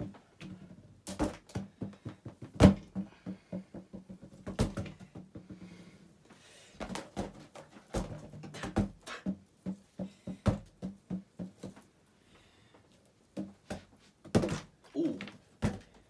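A balloon being batted around by the blades of a spinning Hunter ceiling fan: irregular thumps and knocks, the loudest about two and a half seconds in, with a brief lull a few seconds before the end. A low steady hum, from the fan, is under the first few seconds.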